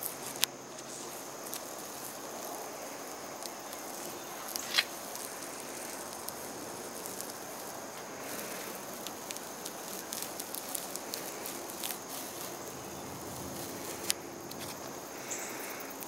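Blue painter's tape being peeled slowly off the polyurethane-finished wooden edges of a dresser: a long, steady tearing rustle as the adhesive lets go, with a few sharp clicks, the loudest about five seconds in.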